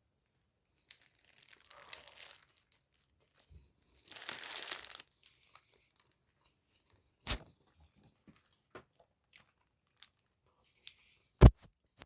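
Takeaway food packaging being handled: paper wrapping rustling and tearing in two short bursts, then scattered light clicks and a sharp knock near the end.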